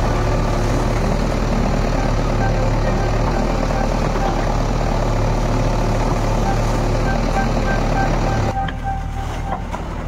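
Diesel engine of a JCB 3DX backhoe loader running steadily at a constant speed. About eight and a half seconds in, the sound drops and thins out abruptly.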